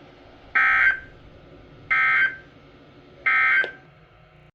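Emergency Alert System SAME data tones: three short buzzy bursts, each under half a second, with about a second's pause between them. This is the end-of-message code that closes an alert.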